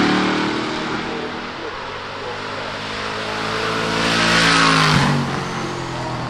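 Engine of an off-road rock-crawler buggy accelerating as it drives past, loudest about four to five seconds in, then dropping in pitch and fading as it moves away up the course.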